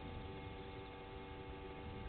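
Steady faint hum and hiss with several constant tones, unchanging throughout, with no distinct sound event.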